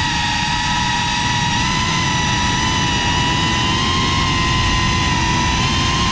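FPV racing quadcopter's brushless motors and propellers whining steadily at cruising throttle, heard from the drone's own camera, with wind and prop-wash rumble on the microphone underneath.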